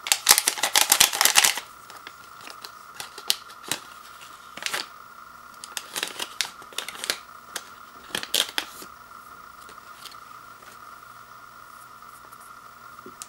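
Small clear plastic packet of dried vegetables crinkling in the hands as it is emptied into a bowl: dense rustling for the first second and a half, then scattered crinkles that die away about nine seconds in.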